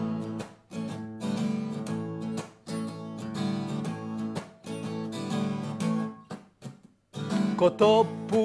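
Acoustic guitar strummed in a repeating chord pattern, breaking off briefly about seven seconds in. A man's singing voice comes in near the end.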